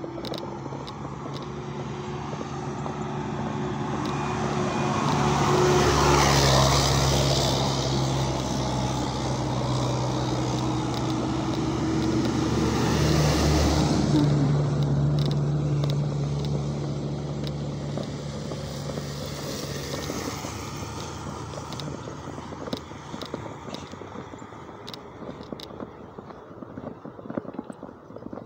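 Motor vehicle engines on the street alongside, a steady hum that swells as vehicles pass close about six and thirteen seconds in, then fades away. A few light ticks come near the end.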